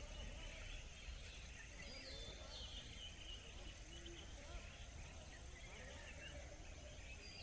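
Faint forest ambience: a low steady hum with a few short, high chirps, about two and two and a half seconds in and again near the end.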